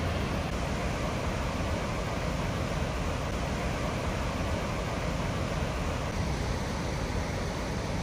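Huka Falls on the Waikato River: a large volume of water rushing over the falls and churning through the pool below, a steady, unbroken rush with a deep rumble underneath.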